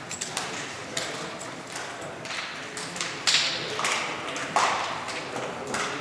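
Players slapping hands in a post-game handshake line in a sports hall: a few sharp slaps, the loudest a little after three seconds and about four and a half seconds in, over indistinct voices.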